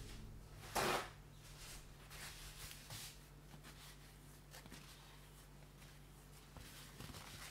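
Paper towel handled and rustled faintly while drying a wet paintbrush, with one louder, brief rustle about a second in, over a faint steady low hum.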